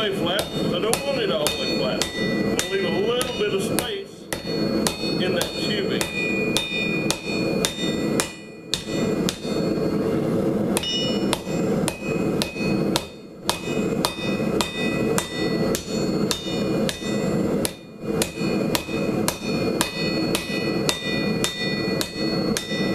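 Light rounding hammer striking red-hot Schedule 40 steel pipe on an anvil to flatten it, about two to three blows a second, with a metallic ring after each strike. The hammering breaks off briefly every four to five seconds.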